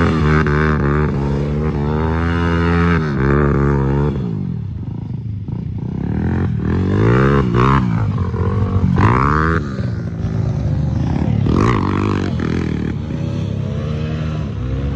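Dirt bike engines revving hard, the pitch rising and falling again and again as the bikes spin and climb on loose gravel.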